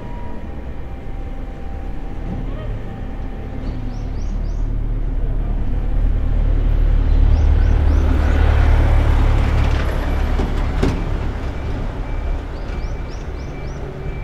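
A train passing: a heavy low rumble of wheels on rail that swells to its loudest about eight seconds in and then fades, with a single sharp clank near eleven seconds in.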